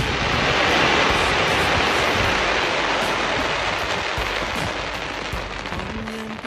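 Dense crackling from the glittering stars of a Yong Feng 300 mm (12-inch) aerial firework shell just after its burst, an even rain-like crackle that slowly fades. Music comes in near the end.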